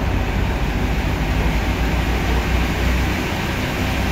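Sawmill machinery running steadily, a loud low rumble with a noisy hiss over it; the deepest part of the rumble eases about three seconds in.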